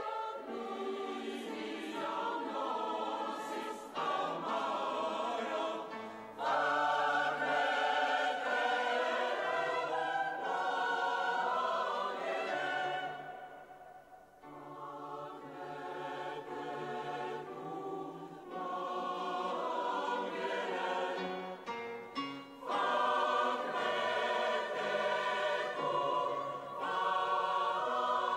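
A large church choir singing a sacred piece in a cathedral, in long sustained phrases that swell and fade. There is a brief hush about halfway through before the voices come back at full strength.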